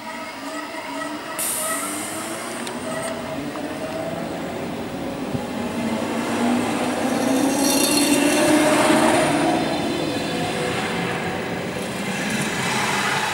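Berlin S-Bahn class 480 electric train pulling away and accelerating past, its traction motors whining in several tones that climb steadily in pitch. It is loudest as the cars pass close, about eight to nine seconds in.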